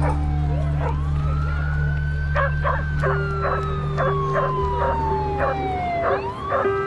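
A siren wailing, its pitch slowly rising, then sinking over about three seconds, and climbing again near the end. Dogs bark about three times a second through the middle, over a steady low hum.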